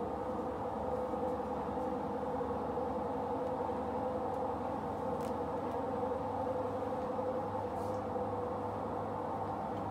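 Steady mechanical hum, even in level throughout, with two faint clicks about five and eight seconds in.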